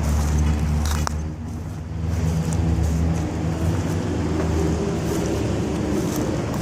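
Road traffic on a busy street: vehicle engines running steadily, one rising slightly in pitch from about the middle on as it speeds up, with a short click about a second in.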